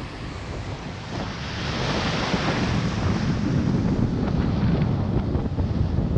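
Ocean surf breaking and washing up the beach, with the rush swelling from about a second in, and wind buffeting the microphone with a low rumble.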